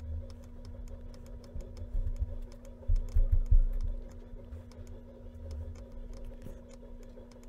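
Irregular light clicking from working a computer's mouse and keys, over a steady low electrical hum, with a few dull low thumps about three seconds in.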